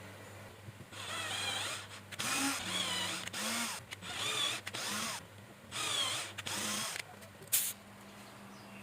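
Power drill running in about seven short bursts, each under a second, its whine wavering in pitch. A brief sharp noise comes near the end.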